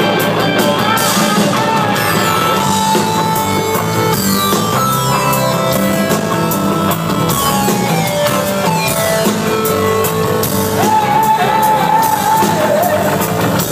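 Live rock band playing loud, with drums and electric guitar, heard from the audience; a wavering sung note comes in near the end.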